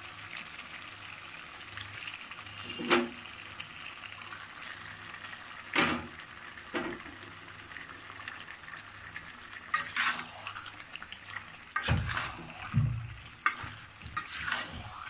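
Raw beef chunks being dropped into a karahi of spice paste fried until the oil has separated, the paste sizzling steadily. Several knocks and clatters as pieces land in the pan, the loudest near the end.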